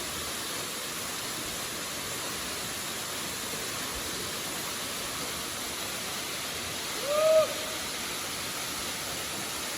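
Steady rush of a waterfall. About seven seconds in there is one short hoot-like call, the loudest moment.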